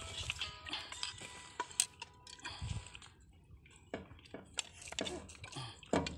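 A spoon clinking and scraping on a plate of rice, with chewing, heard as short scattered clicks and small noises.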